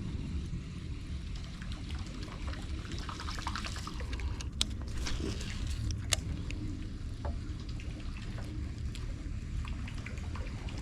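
Water splashing and trickling, with two sharp clicks about halfway through, over a steady low rumble.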